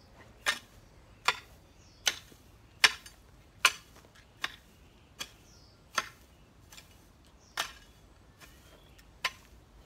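A long-handled garden tool scraping through dry cut grass and soil in short, sharp strokes, a steady rhythm of about five strokes every four seconds, a few of them fainter.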